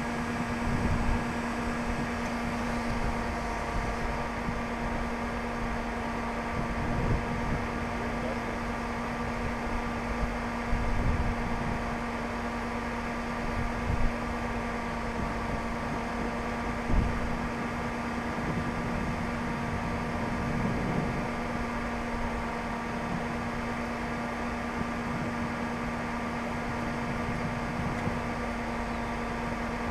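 Steady mechanical hum with a constant low drone, typical of a running motor such as an idling vehicle or its ventilation fan. It is broken by a few brief low thumps, the sharpest about 14 and 17 seconds in.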